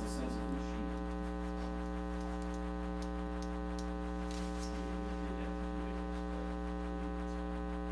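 Steady electrical mains hum in the meeting-room audio feed: a low, unchanging buzz with a ladder of overtones, and a couple of faint clicks about three and four and a half seconds in.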